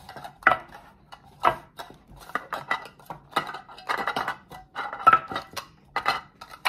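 Hard translucent plastic stacking cups clattering and clicking against each other and the tabletop as they are stacked fast into pyramids. Two sets are handled at once, giving a quick, irregular run of light knocks.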